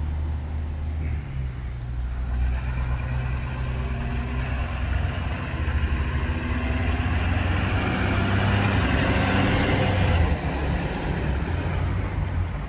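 Ford-chassis ambulance engine running as the ambulance drives up the street toward the camera, growing louder as it approaches and passes close by about ten seconds in.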